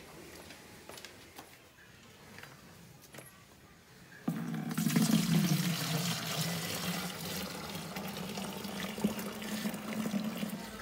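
Fresh milk poured in a steady stream from a metal pail into a plastic milk can. It starts suddenly about four seconds in and runs on as the can fills.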